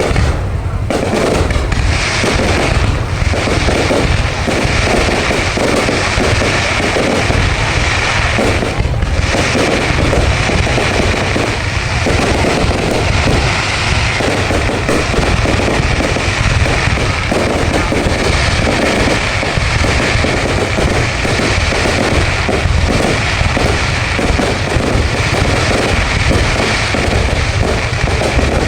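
Fireworks display going off continuously: a dense stream of bangs and crackles over heavy low booms, with no pause.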